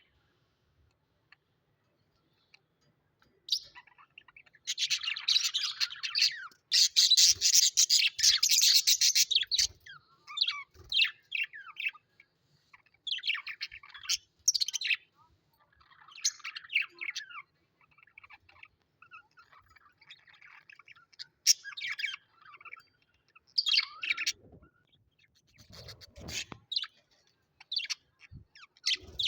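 Birds chirping and calling in short, irregular bursts, starting after a few seconds of near quiet, busiest from about five to nine seconds in, then in scattered calls.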